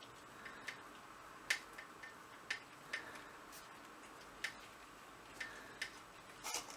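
Faint, irregular light clicks, about one or two a second, from a 3 mm crochet hook being worked through cotton thread while making double-crochet stitches.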